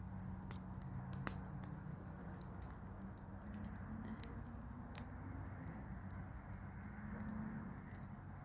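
Wood campfire burning, with faint crackling and scattered sharp pops, the sharpest about a second in.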